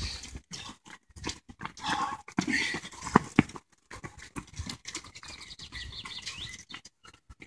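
Footsteps of race runners striding past on a paved path: irregular slaps of running shoes on the pavement.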